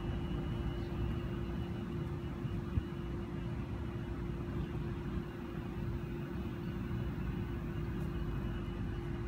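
Steady outdoor background rumble with a constant low hum, with no single source standing out.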